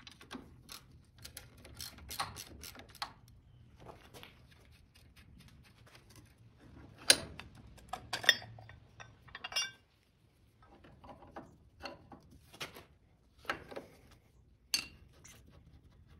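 Steel hydraulic cylinder parts and hose-guard bracket being handled in a bench vise: scattered metal clinks and knocks. The sharpest are a pair about halfway through, followed by a short metallic ring.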